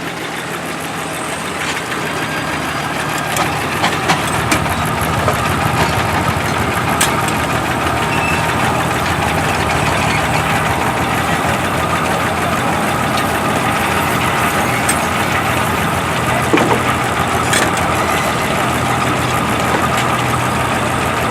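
Half-scale Case steam traction engine driving a belt-driven sawmill, the machinery running steadily. A steady whine builds over the first several seconds, with scattered sharp knocks through it.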